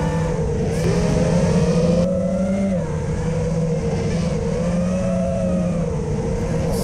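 FPV racing quadcopter's motors and propellers whining, heard from the onboard camera, the pitch wavering up and down with the throttle and dipping briefly about three seconds in.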